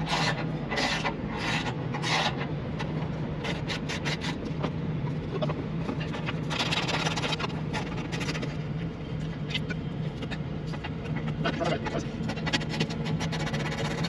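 Ratchet wrench clicking in repeated runs of short strokes as 10 mm bolts are backed out of a semi truck's lower sleeper panel, over a steady low hum.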